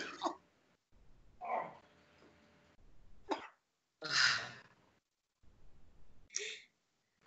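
A person acting out being sick: about four short, separate gagging and retching noises with pauses between them.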